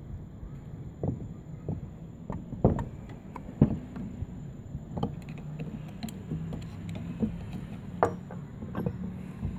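Scattered sharp metal knocks and clicks from a screwdriver levering at the housing of a small electric water pump being taken apart, the two loudest a little under a second apart about three seconds in. A low steady hum runs underneath in the second half.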